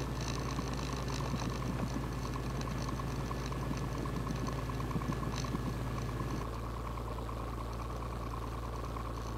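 Extra 300L's Lycoming six-cylinder engine idling during taxi, a steady low drone. It drops slightly in level about two-thirds of the way through.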